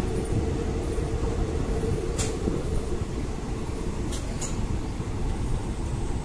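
Indian Railways passenger train running slowly, heard from the coach doorway: a steady low rumble of wheels on track, with a few sharp clicks about two and four seconds in.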